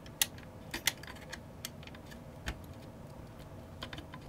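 Irregular small sharp clicks and snaps of thin metal as a perforated RF shield can is pried and worked loose from a modem's circuit board.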